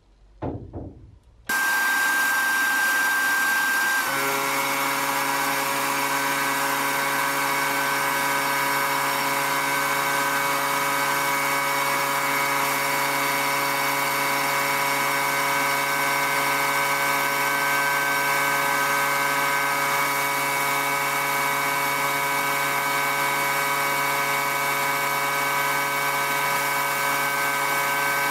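Sandblasting a rusty steel knife blade in a blast cabinet: a loud, steady hiss of air and abrasive from the blast gun over the even hum of a motor. It starts abruptly about a second and a half in, after some light handling sounds, and the hum changes pitch about four seconds in.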